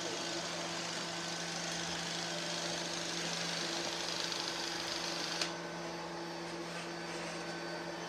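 Several robot vacuum cleaners running together: a steady motor hum with a broad whirring hiss. About five and a half seconds in there is a sharp click, after which the higher part of the hiss drops away.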